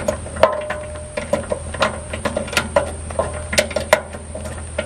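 Ratchet wrench clicking in short, irregular strokes as a bolt on the chipper shredder's frame is tightened by hand.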